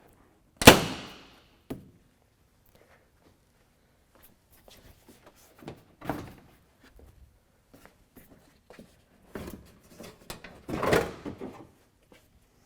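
Plastic front bumper cover of a Toyota Tundra being snapped out of its clips under the fender: one loud sharp snap about half a second in, then scattered knocks and clunks of plastic against the truck as it is worked free, busiest near the end.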